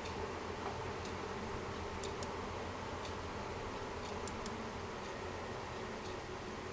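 A few faint keystroke clicks from a mechanical keyboard, some in quick press-and-release pairs, over a steady low hum and hiss.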